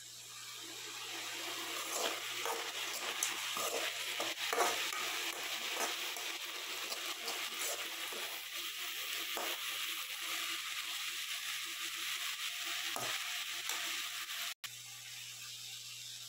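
Drumstick leaves sizzling as they are stir-fried in a metal kadai, a metal spatula scraping and turning them against the pan. The hiss builds up over the first couple of seconds, with scattered scrapes, breaks off briefly near the end and then goes on softer.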